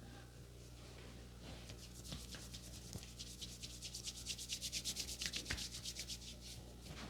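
A barber's hands rubbing rapidly back and forth over a person's head in a massage: fast, even, hissy strokes that build up, are loudest about five seconds in, then ease off.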